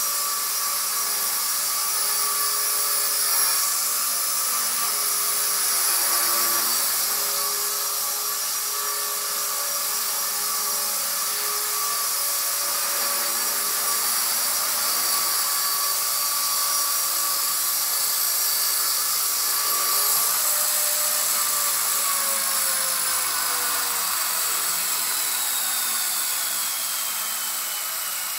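Walkera V120D02S micro RC helicopter in flight: a steady high-pitched whine from its electric motor and rotors. From about two-thirds of the way through, the pitch falls steadily as the helicopter comes down onto a table and its rotors spool down.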